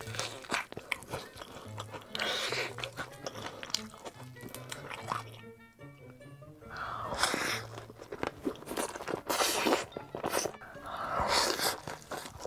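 Close-miked eating: crunchy bites into battered fried chicken and wet chewing, with noodles slurped near the end. A low, steady music bed plays underneath.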